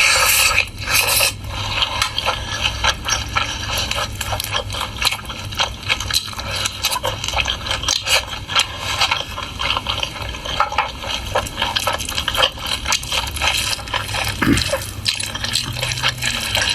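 Close-miked mukbang eating of pork: wet chewing and lip-smacking with a steady run of small mouth clicks and slurps.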